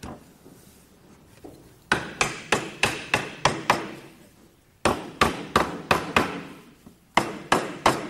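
Wooden mallet striking the top rail of a freshly glued wooden frame, driving the tenons home into their mortises. The blows come in three quick runs of about seven, six and four, roughly three a second, starting about two seconds in.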